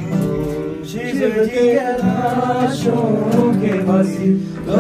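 Acoustic guitar strummed with a man singing along to it.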